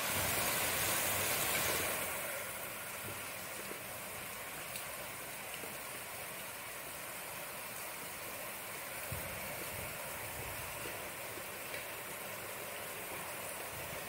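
Steady rain falling, an even hiss with a few faint ticks of drops. It is louder for the first two seconds, then settles to a steady level.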